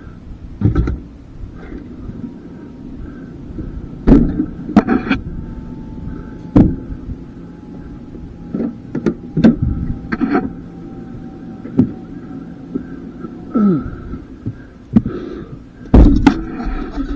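Irregular knocks and clunks, about a dozen, the loudest about four seconds in and near the end, over a steady low hum.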